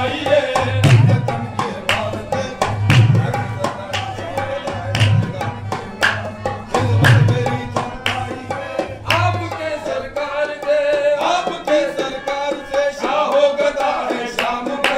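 Qawwali music led by tabla, with a deep bass stroke about every two seconds under a melodic line. The bass strokes drop out for a few seconds about two-thirds of the way through, then return.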